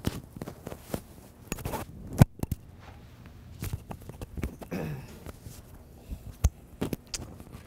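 Microphone handling noise: a clip-on lapel microphone being fastened and adjusted at a sweater collar, giving irregular clicks, knocks and clothing rustle, with the loudest knock about two seconds in.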